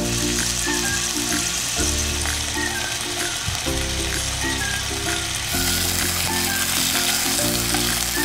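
Pork jowl slices and kimchi sizzling in a hot grill pan, a steady frying hiss that grows a little stronger about halfway through.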